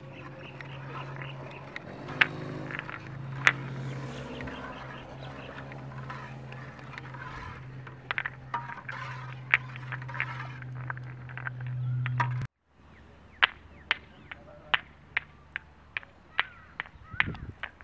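Crackles and clicks from the wood fire burning under an aluminium pot of cooking cow colostrum, with a metal ladle in the pot. A steady low hum runs underneath until it cuts off suddenly about twelve seconds in, after which only scattered crackles are left.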